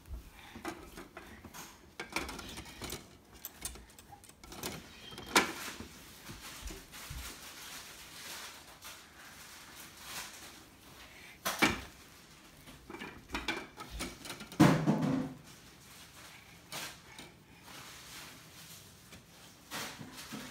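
Window blinds clacking and rattling now and then as a toddler handles and leans on them. There are a few sharp clacks; the loudest come about a quarter of the way in, just past halfway, and as a short clatter a few seconds later.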